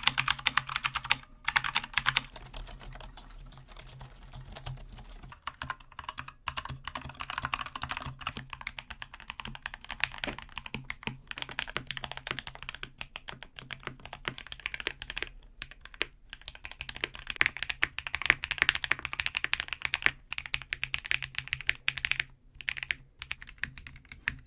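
Fast typing on a series of mechanical keyboards, one after another, every few seconds, running from budget boards to expensive custom builds. The keystrokes come as rapid clicks and clacks whose tone changes with each keyboard.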